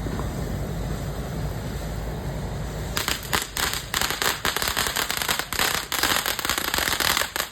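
Consumer fireworks: a dense, rapid crackling starts about three seconds in, over a steady low rumble.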